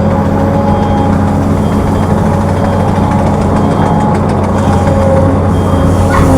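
Heavy diesel engine running steadily with a deep drone. A short rising squeal comes near the end.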